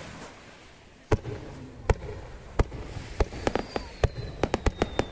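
Fireworks shells bursting in a display: a sharp bang about a second in, then more bangs coming faster, ending in a quick string of them.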